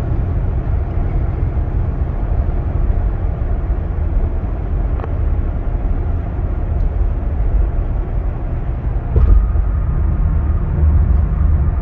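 Steady road and engine noise heard inside a moving car's cabin, mostly a low rumble, with a brief louder thump about nine seconds in.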